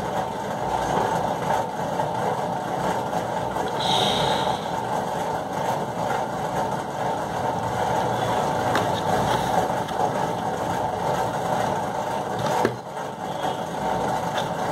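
A steady machine hum, with an oil pastel scratching across paper in short colouring strokes and a sharp click near the end.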